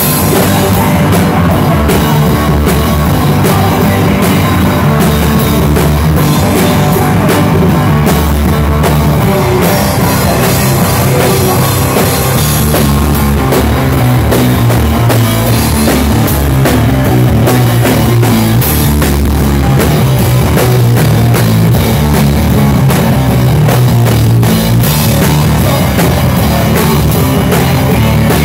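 Loud live rock music from a two-piece band, drum kit and electric guitar, playing steadily.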